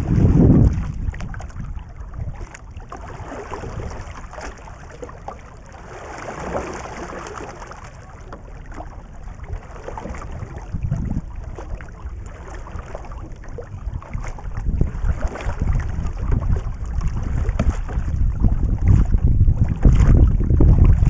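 Kayak paddle strokes dipping and splashing in lake water, with wind rumbling on the microphone that grows louder in the last several seconds.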